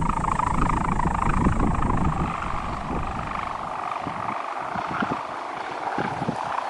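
Pegon kite's bamboo hummer (dul) droning in the wind with a steady, wavering buzz that sounds like a helicopter. Wind buffets the microphone, heavily at first and easing about four seconds in.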